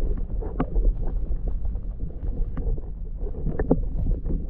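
Muffled underwater sound picked up by a GoPro in its housing just below the water's surface: a steady low rumble of moving water with scattered small clicks and pops.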